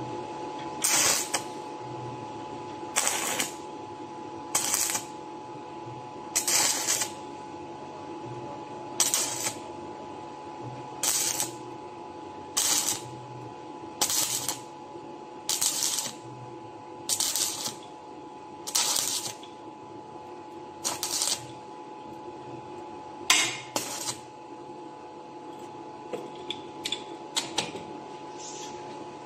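Stick welder with a 6013 electrode arcing on thin galvanized tube in short stitches: about fourteen brief bursts of arc noise, roughly one every two seconds, over the welding machine's steady hum. The short stitches keep the thin wall from burning through. A few faint clicks near the end.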